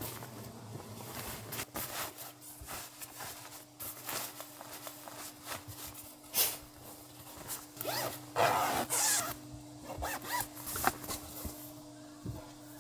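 Fabric rustling from a waterproof mattress cover being handled and fitted, with zipper sounds, the longest stretch about eight seconds in.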